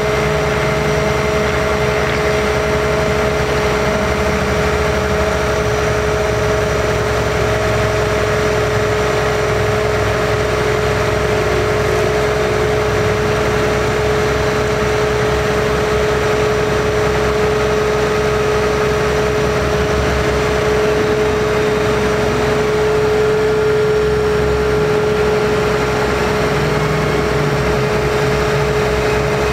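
Cummins ISC diesel engine of a 2005 Kenworth T300 bucket truck running steadily, with the steady whine of the hydraulic pump as the Hi-Ranger TCX55 boom is raised.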